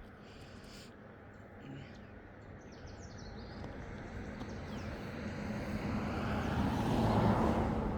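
A car approaching and passing along the road, its running noise swelling to a peak about seven seconds in and then starting to fade. A few faint bird chirps come in the first three seconds.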